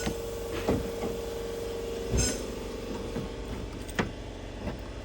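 Hand tools and metal door parts clicking and knocking now and then during work on the door latch and its lock rods, with one louder metallic clank about two seconds in. A steady hum stops at about the same moment.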